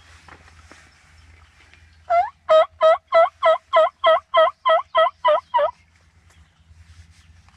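A run of about a dozen loud, evenly spaced turkey yelps, roughly three a second, beginning about two seconds in and stopping shortly before the end.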